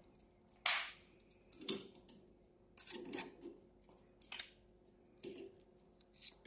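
Irregular sharp clicks and short scrapes, about six of them, from small parts and tools being handled while a cup sealing machine's output gate sensor is swapped, over a faint steady hum.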